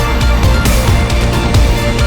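Loud background music with a steady driving beat and heavy drums.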